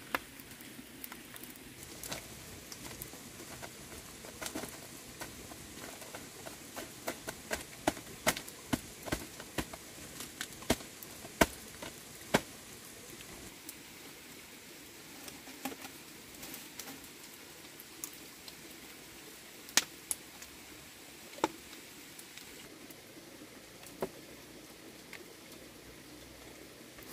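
Sharp clicks and taps of wooden chopsticks knocking on a split bamboo tube as small fish are picked out onto a banana leaf, over a wood fire crackling. The taps come thickly in a run in the first half, then only a few louder knocks later.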